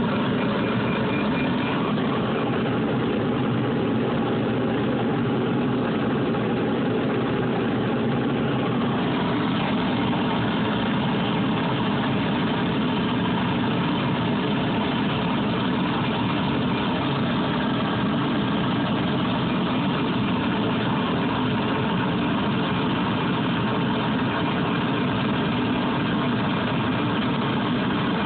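Small CNC lathe running steadily as it turns a wooden goose call insert, making an even machine noise with no distinct knocks or pauses.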